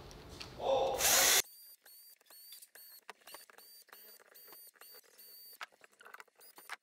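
Cordless drill/driver with a Torx T20 bit unscrewing the housing screws of a 12 V diaphragm sprayer pump: the drill runs loudly for under a second about a second in, then gives a faint, even series of short high-pitched whirs, about two or three a second.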